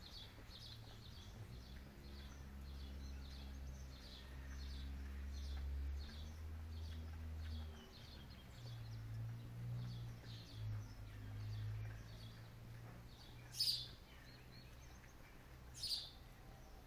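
A small bird chirping over and over, about two short high chirps a second, with two sharper, louder calls near the end. Under it a low steady hum swells up through the middle and fades away.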